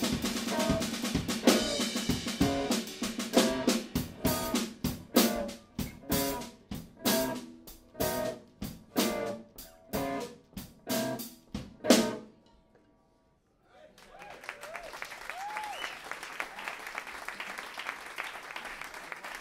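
Drum kit and electric guitar playing fast, breaking into heavy accented hits about twice a second and ending on one loud final hit. After a brief silence, audience applause begins.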